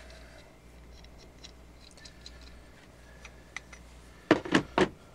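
Faint light clicks of a die wrench and its spacer ring being handled, then three sharp clacks in quick succession about four seconds in, as the spacer ring is worked out of the wrench.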